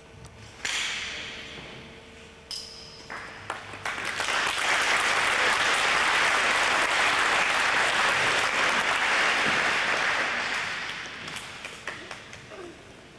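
An audience clapping for about seven seconds, swelling in and fading out. Before it, two sharp hits a couple of seconds apart, the second with a short ringing tone.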